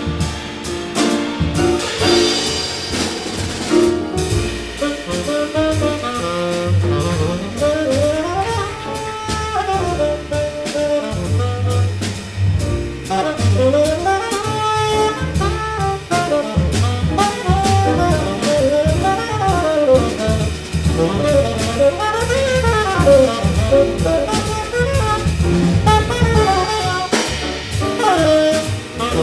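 Live jazz quartet: a tenor saxophone solos in quick melodic runs that rise and fall, over grand piano, walking upright bass and a drum kit keeping time on the cymbals.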